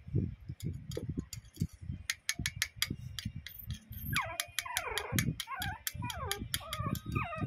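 Metal spoon clicking repeatedly against a small ceramic bowl while stirring honey into crushed oregano. From about four seconds in, a puppy whines in sliding, rising and falling cries.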